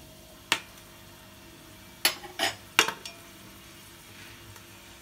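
Metal spoon knocking against a steel pot four times while stirring whole spices in hot oil: once about half a second in, then three quick knocks a couple of seconds later. A faint sizzle of the spices frying runs underneath.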